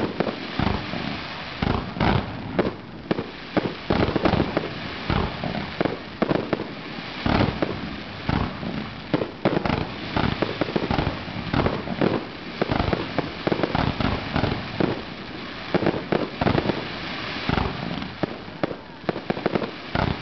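Aerial fireworks bursting in a rapid, irregular string of sharp booms and pops, about one to three a second, with crackle and hiss in between.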